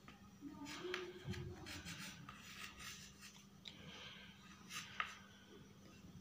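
Faint chalk writing on a slate: a stick of white chalk coloured with brush pen scratching in short, irregular strokes as letters are written.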